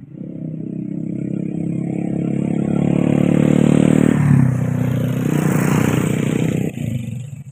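A motorcycle's engine passing close by: it grows louder as it approaches, and its pitch drops about four seconds in as it goes past, then cuts off near the end.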